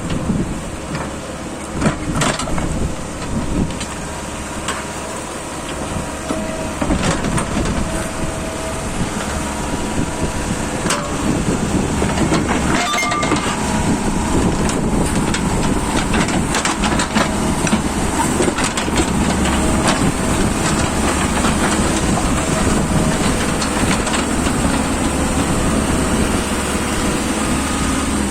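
Backhoe loader's diesel engine running as the machine digs a ditch, with repeated sharp metal clanks and knocks from the bucket and arm. The engine gets louder about twelve seconds in.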